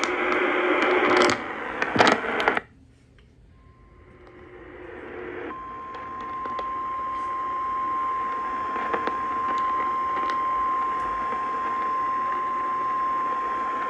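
Weather radio broadcast received over the air: about two and a half seconds of loud crackling static, then a sudden drop to near quiet. Then the steady warning alarm tone comes in, faint at first and at full strength about five seconds in, held over a light hiss.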